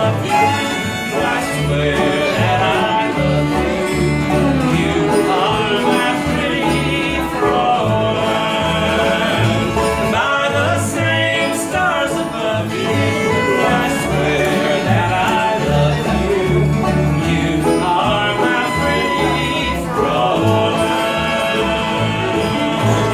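Country band playing live, with string instruments over steady, changing bass notes.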